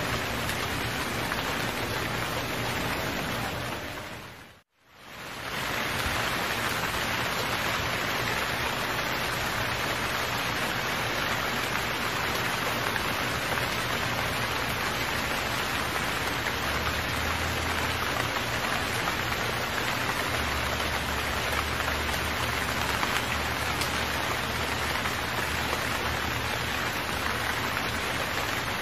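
Rain sound effect: steady, even rainfall. It fades down to silence about four to five seconds in, then fades back up and runs on unchanged.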